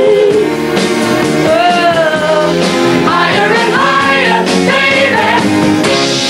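Background rock-style song with a singing voice over a band.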